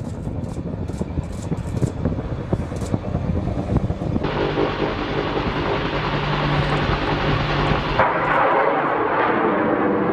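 AH-1 Super Cobra attack helicopter in flight: steady rotor and engine noise with a low hum. The sound changes abruptly twice, about four and eight seconds in.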